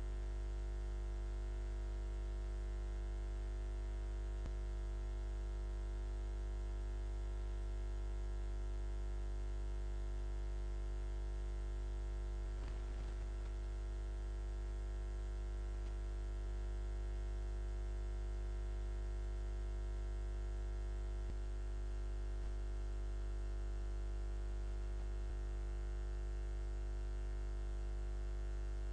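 Steady electrical mains hum: a low buzz with many evenly spaced overtones that does not change.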